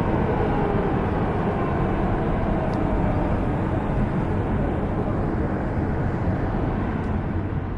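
Steady road noise of a car driving in traffic, tyre and engine noise heard from inside the car.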